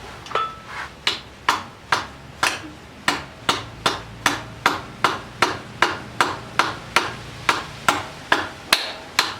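Steady hammering, sharp blows about two and a half a second on motorcycle exhaust hardware, beating loose a stubborn part by hand.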